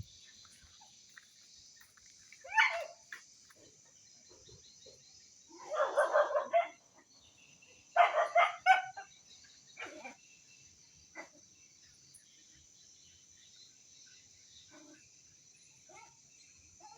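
Indonesian village dog (anjing kampung) barking in short bouts. A single bark comes about two and a half seconds in, then two quick runs of barks around six and eight seconds, then a few fainter single barks.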